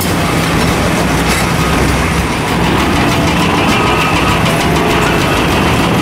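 Excavator diesel engine running hard under load while an Xcentric Ripper JGXR40 vibrating ripper attachment hammers into limestone, a steady heavy machine sound with a rapid rattling clatter over it.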